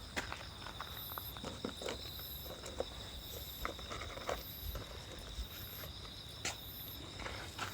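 Insects singing: a steady high-pitched trill with a very high chirp repeating about once a second, and scattered light clicks and steps.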